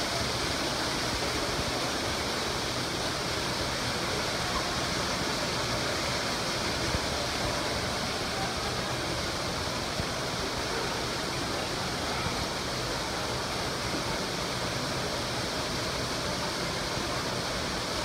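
Steady rush of water falling over a rock-wall waterfall.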